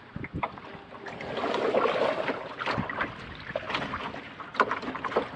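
Canoe being paddled: a paddle swishing through the water, with scattered small splashes and knocks.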